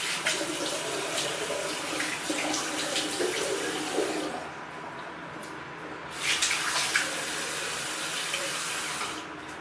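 Tap water running into a sink, with splashing. It quietens about four seconds in, splashes more loudly around six to seven seconds, and falls away near the end.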